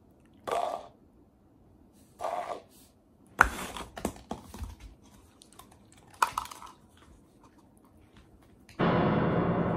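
Black Shiba Inu going after an upturned paper cup on a table to get the treat under it: a few soft scuffs, then a sharp knock about three and a half seconds in and a run of light taps and clicks as the cup is knocked about. Near the end a loud sustained tone starts and slowly fades.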